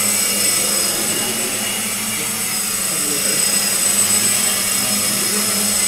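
Home-built quadcopter's four electric motors and propellers hovering: a steady whine with several held pitches over an even rush of propeller wash.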